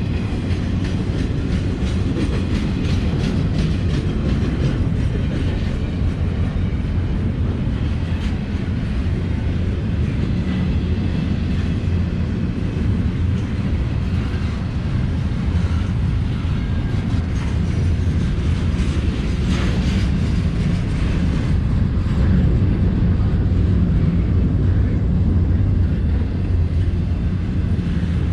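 A freight train rolling past: a steady, heavy low rumble of the cars with a continual clatter of wheels over the rail joints.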